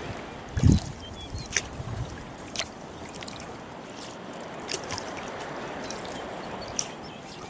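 Rowboat being rowed, with water trickling and dripping from the oars and scattered small splashes. A dull low thump, the loudest sound, comes under a second in.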